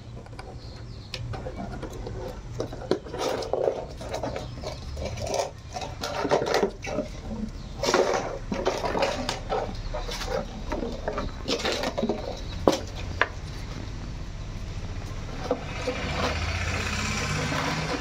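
Labrador puppies playing on a concrete floor: scattered knocks, scuffs and scrapes from paws and a plastic ball being pushed about, over a steady low rumble. A steady hissing noise comes in about three-quarters of the way through.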